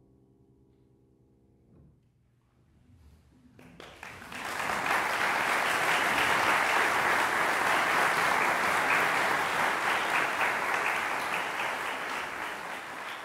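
The final chord of a grand piano rings faintly and dies away, then an audience breaks into applause about four seconds in, swelling quickly and holding steady before thinning slightly near the end.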